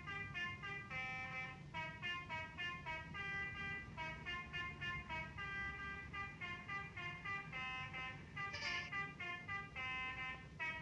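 Basuri telolet multi-tone bus horn playing a quick tune of short honked notes, over a steady low rumble.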